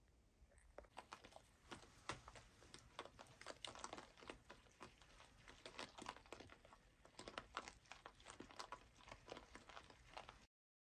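Hogs chewing shelled corn at a feeder: a steady run of faint, irregular crunches and clicks starting about a second in.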